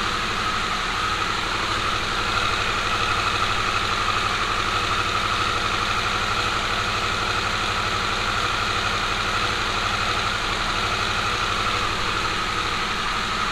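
A steady, unchanging mechanical hum with a faint high whine running through it.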